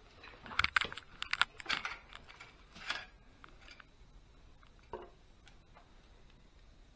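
Light clicks and clinks of small parts and tools being handled at an engine: a quick flurry in the first three seconds, then a lone tap about five seconds in.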